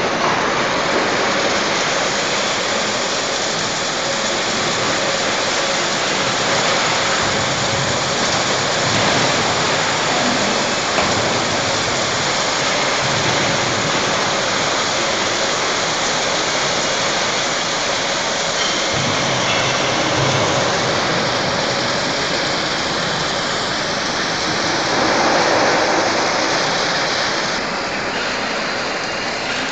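Automatic argon arc welding torches on a column-and-boom welding manipulator, making a steady hissing crackle as they weld along a seam, with a brief swell near the end.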